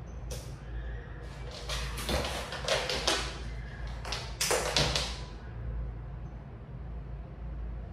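A few short bursts of rustling and scuffing as cats move about among their toys and the play tunnel, over a low steady hum.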